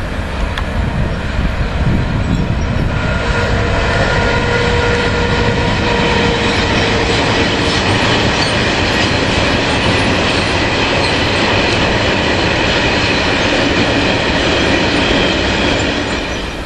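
Electric-hauled freight train of covered sliding-wall wagons rolling past: a loud, steady rumble and rattle of the wheels on the rails, with a few thin ringing tones over it. It grows louder a couple of seconds in as the wagons come alongside and drops away near the end.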